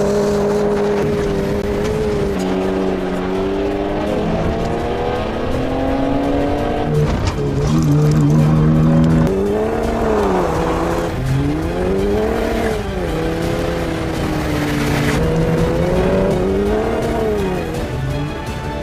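Ford Raptor pickup's engine revving up and down repeatedly while driving off-road, its pitch climbing and falling every second or two, with steadier stretches in between.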